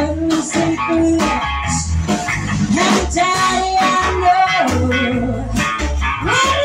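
Live band playing: electric guitar, upright double bass and drum kit, with a woman singing lead into a microphone.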